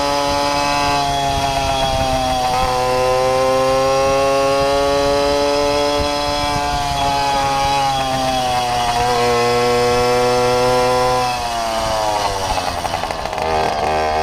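Babetta moped's 50 cc two-stroke single-cylinder engine running under throttle, its pitch slowly rising and falling. About eleven seconds in the revs drop off and it runs lower and rougher.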